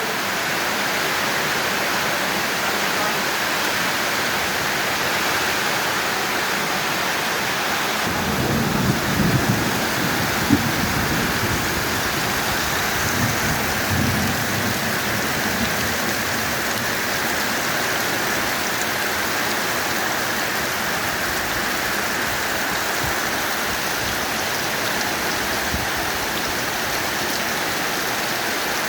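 Heavy rain pouring steadily. Low rumbles of thunder come in about eight seconds in and again around thirteen seconds.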